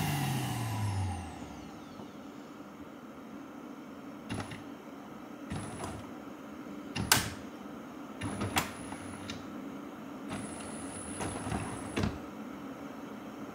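A motor spinning down, its pitch falling over about the first second. After that comes a quiet room with a handful of short clicks and rustles, the sharpest about seven seconds in.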